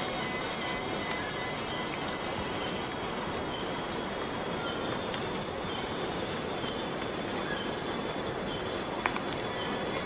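Steady chorus of insects chirring, with a continuous shrill high tone and a faint pulse about once a second. There is one brief tick near the end.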